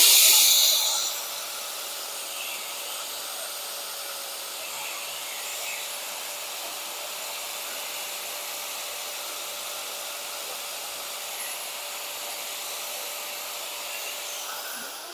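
Electric angle grinder with a conical abrasive stone: loud grinding against the inside of an exhaust-manifold gasket for about the first second. It then runs on without load, a steady whine over hiss, while the gasket is held away from it.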